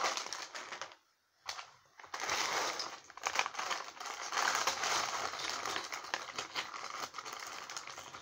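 Small clear plastic bag of Lego parts crinkling and rustling as it is handled, with many light clicks. It drops briefly to near silence about a second in.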